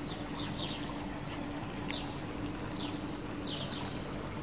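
Small birds chirping, with scattered short falling chirps, over a steady low hum.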